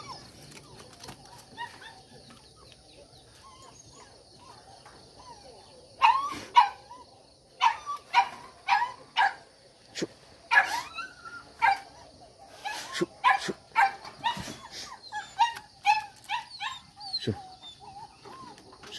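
Hunting dogs barking in short, sharp yips, one to two a second, starting about six seconds in, as they work a rat hole in a rubble pile.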